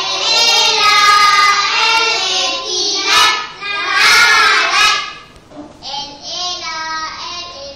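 A class of young children chanting phonics syllables together in a loud, sing-song unison. About five seconds in it drops to quieter voices.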